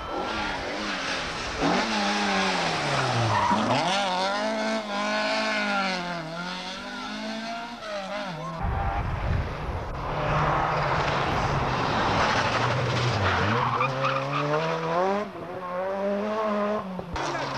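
Rally car engines revving hard through a tight bend: a Ford Escort Mk2's engine note rises and falls repeatedly as the car slides round, then, after a cut about halfway, a Ford Sierra RS Cosworth's engine revs up and down through a similar turn.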